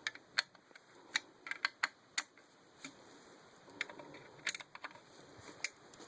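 Irregular sharp clicks and taps of a screwdriver, screws and TV-stand parts being handled. There are about ten clicks, several in quick runs during the first two seconds and more around the middle.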